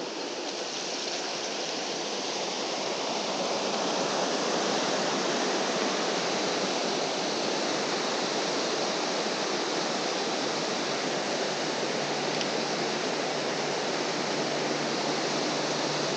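Rain-swollen creek running high: a steady rush of water that grows louder over the first few seconds, then holds steady.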